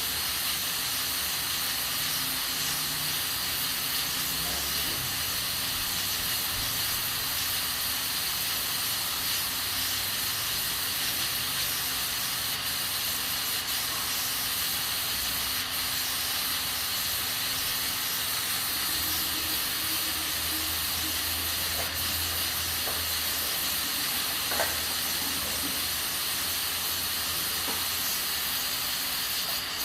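Aluminium pressure cooker hissing steadily as steam escapes from its valve while it cooks beans under pressure.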